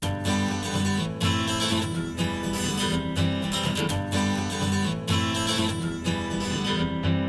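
Acoustic guitar music: a strummed acoustic guitar over a bass line, starting abruptly out of silence.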